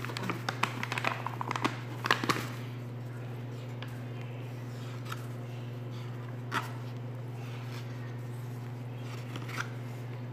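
Hands tossing chicken pieces in flour in a stainless steel bowl: a flurry of rustling, squishing and clicks for the first two seconds or so, then a few scattered soft taps. A steady low hum runs underneath.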